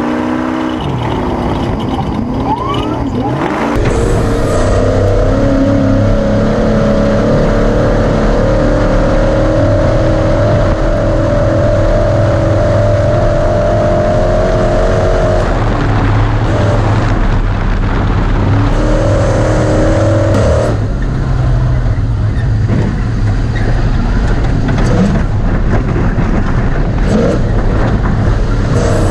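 Ford Ranger off-road race truck's engine running hard, its pitch wavering as the throttle comes on and off, over a heavy low rumble with scattered knocks from the truck crossing rough dirt.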